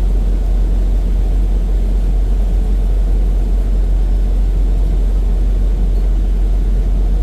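Semi truck on the road: a steady low rumble of engine and road noise.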